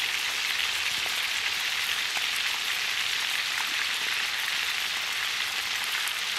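Two chuck roasts searing in hot bacon grease in a Dutch oven, a steady sizzle with a few faint pops.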